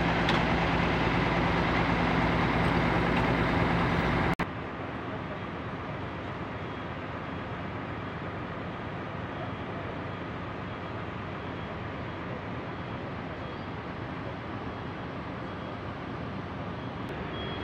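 Diesel bus engine idling with a steady hum. It cuts off abruptly about four seconds in, leaving a quieter, even background noise for the rest.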